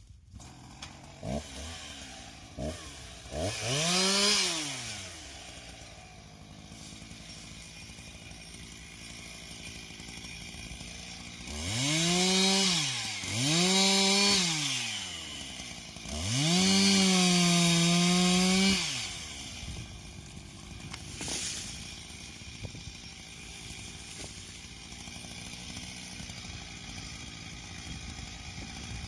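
Two-stroke chainsaw idling and being revved: a couple of quick throttle blips, three short revs that rise and fall, then one rev held for about two seconds before it drops back to idle.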